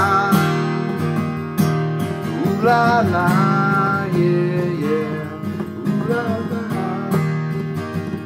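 Acoustic guitar strummed steadily, with a wordless voice carrying a gliding melody over it in a few short phrases.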